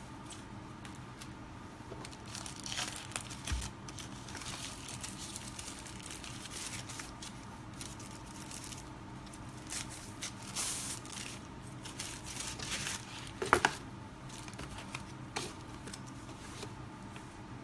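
Packaging being handled and unwrapped: irregular crinkling and rustling with scattered clicks, and one sharp click about 13 and a half seconds in that is the loudest sound.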